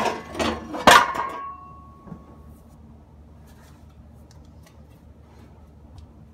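Exhaust pipe section clanking and clattering against the concrete floor several times, the loudest strike about a second in leaving a short metallic ring that dies away; after that only a few faint ticks.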